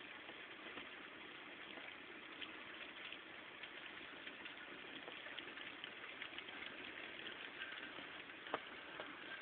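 Heavy rain falling in a steady hiss, with individual drops tapping sharply against the glass, the taps growing more frequent in the second half and one sharper tap near the end.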